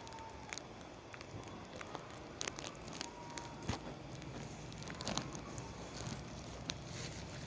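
Irregular light crackles and snaps with soft rustling, the sound of dry vegetation being handled or pushed through, with two faint brief whistle-like tones.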